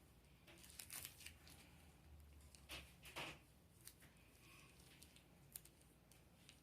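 Near silence, with a few faint rustles and soft taps from a thin plastic sheet being handled, clustered in the first half.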